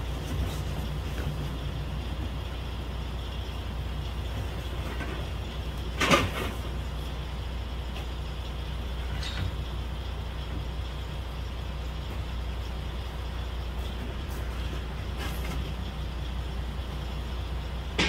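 Semi-truck engine idling with a steady low hum, with one sharp thump about six seconds in and a lighter knock a few seconds later as cardboard boxes are handled and set down.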